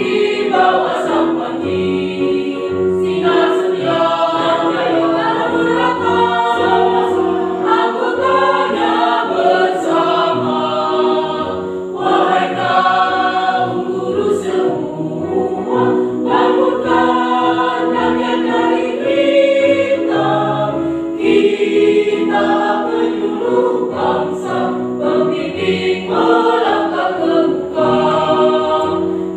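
Mixed choir of men and women singing together in harmony, with held chords changing every second or so and no pauses.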